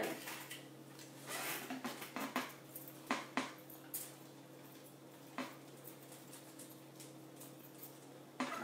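Metal jewelry and pegboard hooks clinking and clicking as pieces are handled on a pegboard display. There is a flurry of small clatters in the first few seconds and a couple of single clicks later, over a steady low electrical hum.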